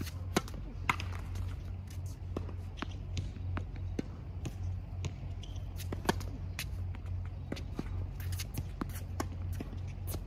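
Tennis serve and rally on a hard court: sharp pops of racquet strings striking the ball, the loudest about a third of a second in on the serve, with ball bounces and shoe scuffs between them. A steady low hum runs underneath.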